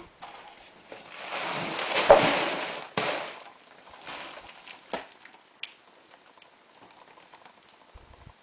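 Handling noise: a rustling, sliding sound lasting about two seconds with a few sharp clicks in it, followed by a few more separate clicks.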